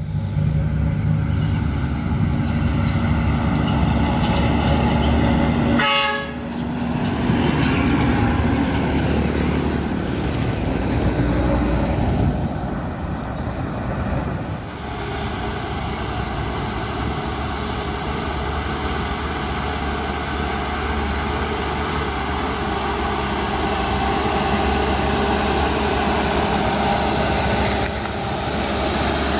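Trucks driving past with diesel engines running, and a truck horn sounding: a short blast about six seconds in, then a long steady horn from the red Isuzu Elf 125 PS dump truck, sounded as a greeting while it passes.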